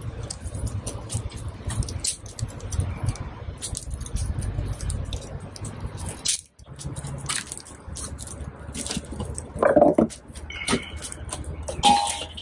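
Small wood and twig fire crackling with many short pops in a steel firepit. Near the end there are a few louder rustles as more dry twigs are piled onto the fire.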